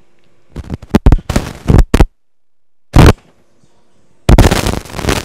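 Motorized arthroscopic shaver trimming the posterior fragment of a degenerative medial meniscus tear. Its loud noise comes in stop-start bursts, then runs steadily from about four seconds in.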